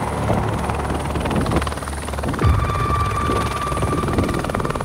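Turbine helicopter running, its rotor beating in a fast, even rhythm over a heavy low rumble; about halfway through, a steady high turbine whine comes in.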